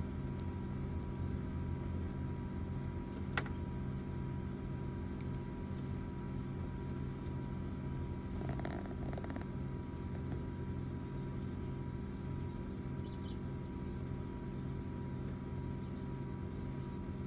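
Steady low mechanical hum with a faint high tone running through it. There is a single sharp click about three seconds in and a brief cluster of faint sounds around nine seconds.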